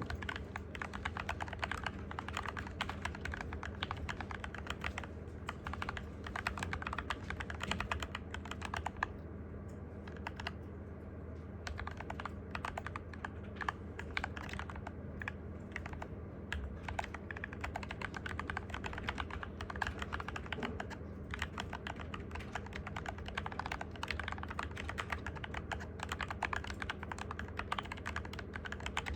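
Cygnus keyboard being typed on quickly and continuously, a dense run of key clicks with a brief lull about nine seconds in. A steady low hum sits underneath.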